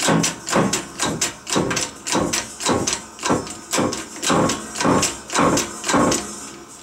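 Hydraulic shop press being hand-pumped to press a wheel hub into a front wheel bearing, a rhythmic creaking stroke about twice a second with each stroke falling in pitch; the pumping stops near the end.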